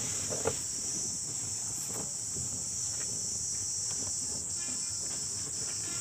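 A steady high-pitched drone, with a few faint soft knocks.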